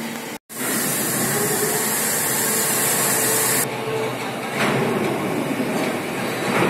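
Factory machinery running: a steady mechanical hum with a faint whine, under a loud hiss that cuts off suddenly about halfway through. A brief gap in the sound comes right at the start.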